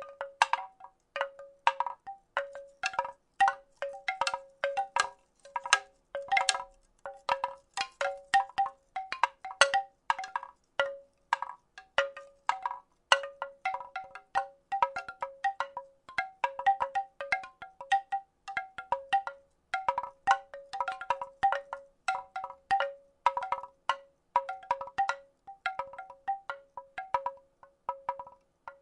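Wooden rattle shaken in a loose, irregular rhythm: short knocks a few times a second, each with a brief pitched ring.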